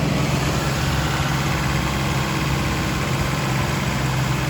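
Car engine running steadily at a raised speed of about 2000 rpm, with the air-conditioning on at maximum and its compressor working while refrigerant is charged into the low side.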